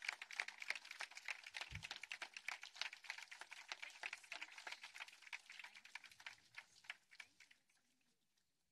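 Crowd applauding; the clapping thins out and dies away near the end. A brief low thump about two seconds in.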